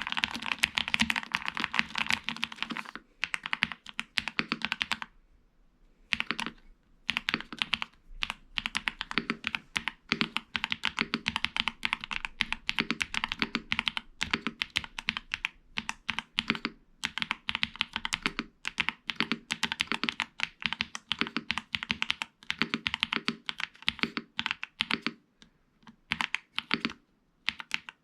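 Typing on a Galaxy 65 65% mechanical keyboard: fast runs of key clicks and clacks, pausing briefly a few times.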